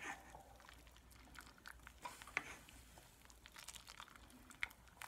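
Faint, sparse clicks and soft scrapes of a spoon stirring a pot of simmering chicken noodle soup, with a low steady hum underneath.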